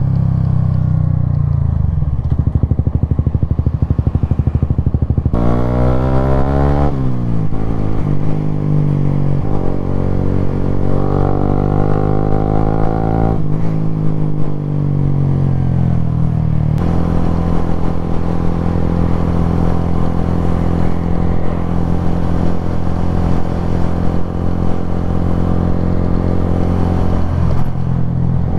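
Suzuki GSX-S125's single-cylinder four-stroke engine running under way. Its pitch climbs and drops several times through the first half as it works up through the gears, then holds steady at a cruise, with a rush of wind over it.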